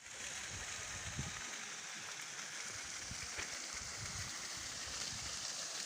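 Steady rushing of waterfall water, an even hiss with no pauses, with low irregular rumbles underneath.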